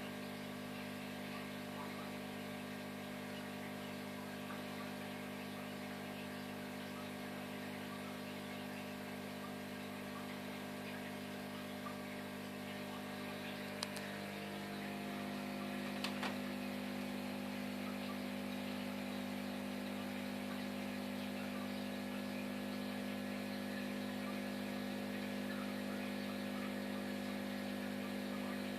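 Steady electrical hum of running aquarium equipment over a soft hiss of bubbles rising from the tank's air curtains. Two small clicks come about halfway, after which the hum is a little louder.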